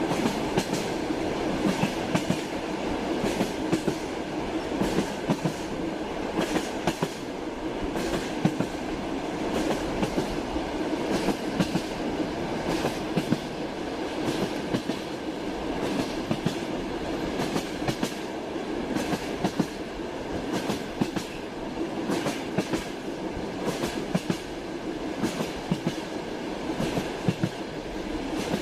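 Toy railway train running: its wheels click irregularly over the rail joints above a steady running rumble.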